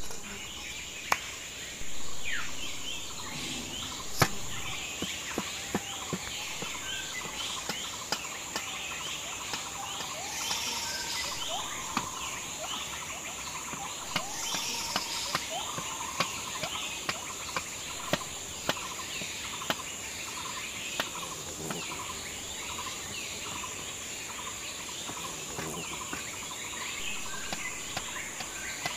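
A meat cleaver striking a wooden chopping block in irregular sharp knocks as it cuts chicken and then vegetables. Birds chirp throughout over a steady high insect drone.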